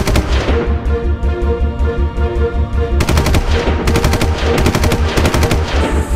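Rapid machine-gun fire sound effects, a short burst at the start and longer bursts from about halfway through, over background music with a steady bass beat.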